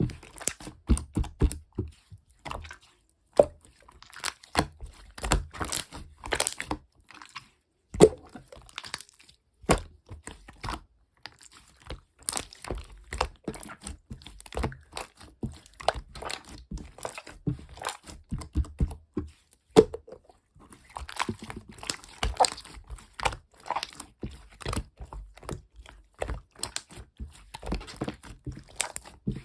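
Small objects and crinkly material being handled by hand: irregular crinkling and rustling with light taps and sharp clicks scattered throughout.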